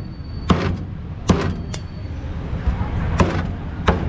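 Cleaver chopping crocodile meat on a round wooden chopping block: five sharp chops at uneven intervals, over a steady low background hum.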